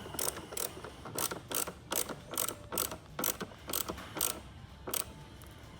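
Hand ratchet clicking in short strokes, about two or three clicks a second, as screws are cinched down; the clicking stops shortly before the end.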